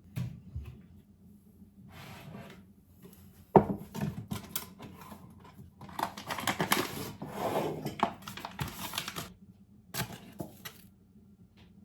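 Household objects being handled: scattered clicks and knocks, a sharp knock about three and a half seconds in, and a few seconds of dense clattering and rustling in the middle.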